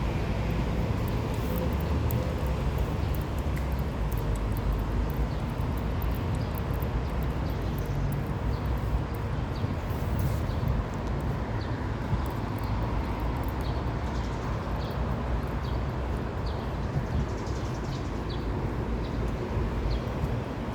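Steady low wind rumble on the microphone, with scattered small clicks; in the second half a bird gives a run of short, high chirps.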